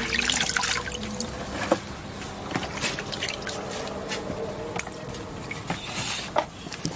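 Water splashing and dripping, with many small ticks and knocks through it.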